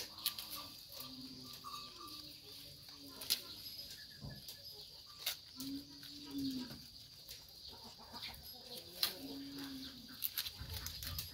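Leafy branches rustling and snapping as young goats tug and chew at a hand-held bunch, with sharp crackles every second or two. A few short low calls sound in the background.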